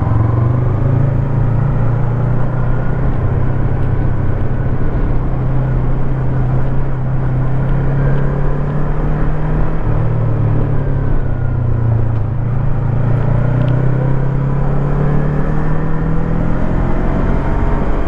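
Yamaha MT25 motorcycle's 250 cc parallel-twin four-stroke engine running under way, its note drifting gently up and down with the throttle, over a steady rush of road and wind noise.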